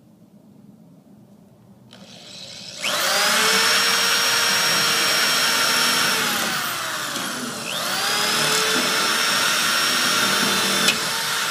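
Electric hand drill boring a hole through a 1971 Mustang's steel trunk lid. The motor winds up about three seconds in and runs with a high whine, slows down partway through, then winds back up and runs on, with one sharp click near the end.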